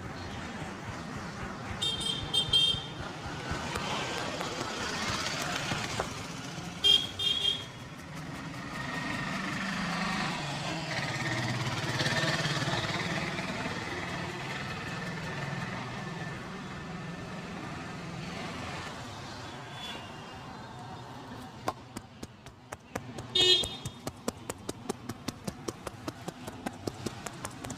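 Street traffic with vehicle horns honking in short blasts three times: about two seconds in, about seven seconds in, and just before the end. Near the end comes a quick, even run of taps, about three a second.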